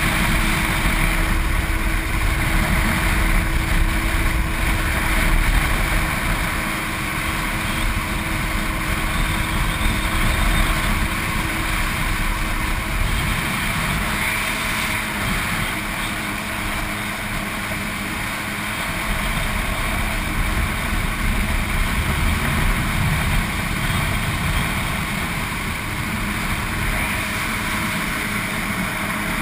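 Jet ski engine running steadily while the craft is under way, with water rushing and spraying past the hull.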